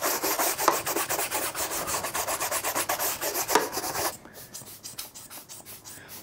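A stiff brush scrubbed rapidly back and forth over the grip tape of a Onewheel foot pad, cleaning the grip: quick rasping strokes, several a second, firmer for about the first four seconds and then lighter.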